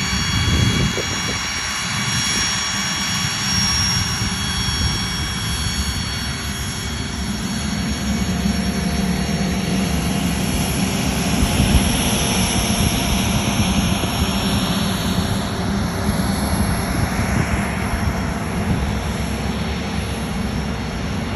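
Twin Williams FJ44 turbofans of a Cessna Citation CJ2+ business jet at taxi power, heard close up: a loud steady rush with a high jet whine over it, the whine shifting in pitch as the jet goes past.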